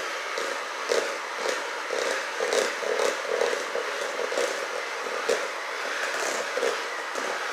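Electric hand mixer running with its beaters churning a thick batter in a metal bowl, with irregular clacks as the beaters knock against the bowl.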